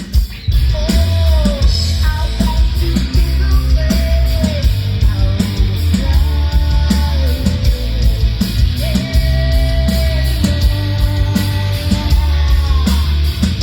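Live rock band playing an instrumental passage: drums, bass and electric guitar, with a lead line that bends and slides between notes every couple of seconds.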